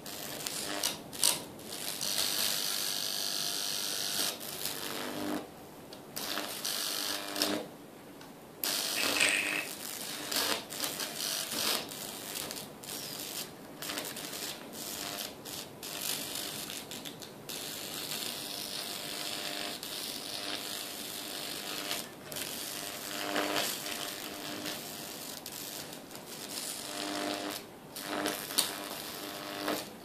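High-voltage arc from a microwave oven transformer, at about 2000 volts, crackling and sizzling across a microwave's display circuit board, with a steady buzz underneath. The arc cuts out briefly several times and strikes again.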